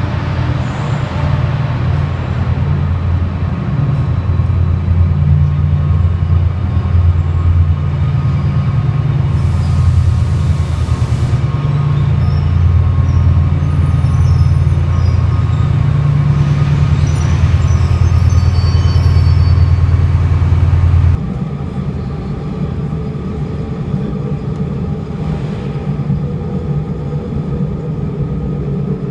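Class 68 diesel locomotive's V16 engine running with a low, steady drone as it draws its train into the platform, with a hiss of air for about two seconds partway through and faint high squeals of brakes near the end of the approach. It cuts off suddenly to the quieter, steady rumble inside a passenger train.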